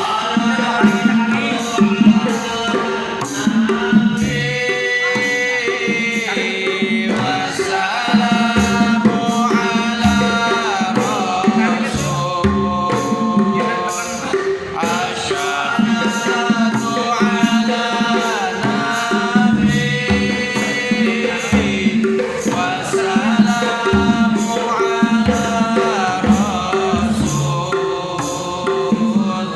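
Sholawat singing: one voice singing long, ornamented phrases with sliding pitch over a steady hand-drum rhythm.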